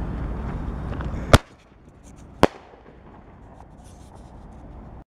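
A TNT artillery shell with comet tail climbs with a steady rushing noise. It bursts with a sharp bang about a second in, and a second, fainter bang follows about a second later.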